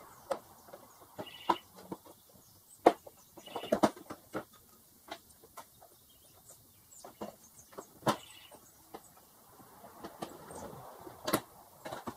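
Irregular plastic clicks, taps and knocks as a small screwdriver pries out two-piece plastic push-pin retainer clips and works a plastic ATV side panel loose, with a few short squeaks.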